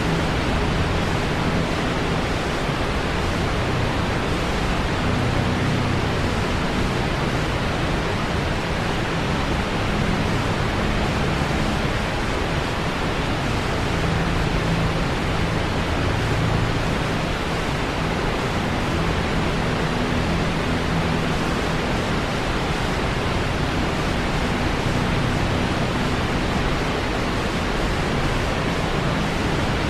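Steady, unbroken rush of falling water from a waterfall, an even hiss across all pitches with a low rumble underneath.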